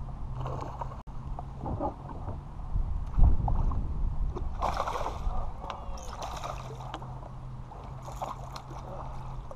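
A hooked fish splashing at the surface beside a kayak as it is played in and landed with a net, in several short bursts of splashing and water sloshing, with a heavy thump about three seconds in.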